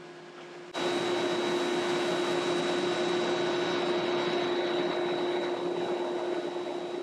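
Industrial wide-belt sander running, a steady rushing noise with a low hum and a thin high whine. The noise comes in suddenly under a second in and eases off a little near the end.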